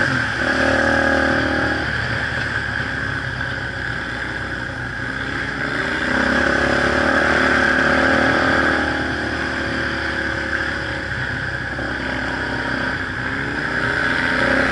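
Onboard engine of an off-road vehicle running on a dirt trail, its pitch rising and falling several times as the throttle is opened and eased.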